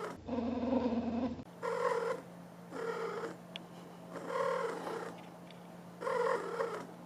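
An animal making a series of five short pitched calls, each half a second to a second long, with short pauses between them.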